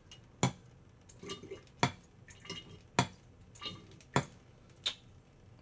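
Gear oil overflowing from the differential fill hole, dripping into a drain pan: five sharp plinks about a second apart, with fainter drip sounds between them. The overflow is the sign that the differential is full.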